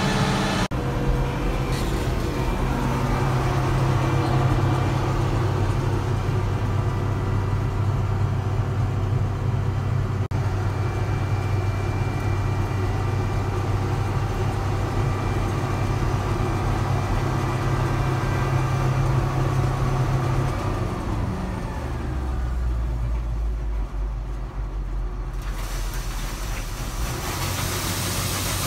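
International 1460 combine running steadily. About 21 seconds in its engine note drops lower, and a few seconds later a hiss rises as the unloading auger starts pouring soybeans into the wagon.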